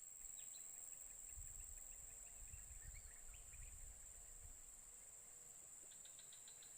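Near silence: faint marsh ambience with a steady high-pitched insect drone, scattered faint chirps, and a soft low rumble over the first four seconds.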